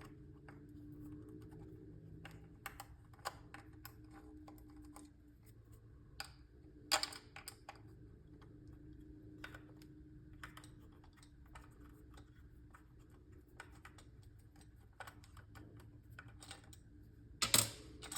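Irregular small clicks and taps of a hand Torx driver and tiny screws against a plastic shift-knob module as the screws are backed out and pulled, with a louder cluster of clacks near the end.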